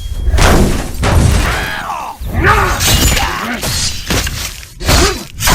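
Fight sound effects: a rapid series of heavy impacts and shattering crashes, mixed with short grunts and strained vocal efforts between the blows.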